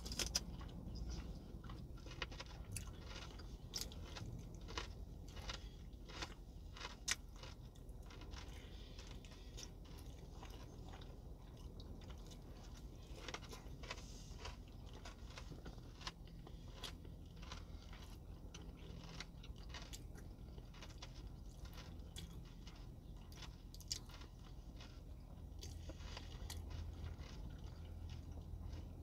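Close-up chewing and biting: a person gnawing meat off a small bone, with many irregular crisp clicks and crunches, over a steady low hum.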